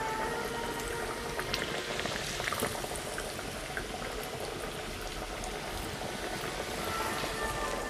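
Lote fish chops coated in egg and biscuit crumbs deep-frying in hot oil in a kadai: a steady bubbling sizzle with small scattered crackles.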